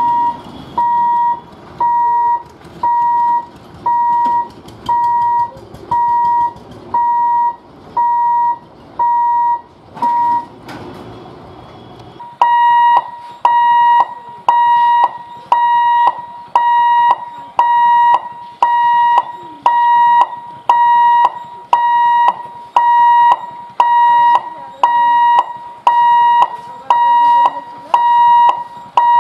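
Electronic warning hooter of an automatic railway level-crossing gate, beeping a single high tone about one and a half times a second: the signal that the barrier is closing for an approaching train. It breaks off around ten seconds in, then resumes louder and sharper.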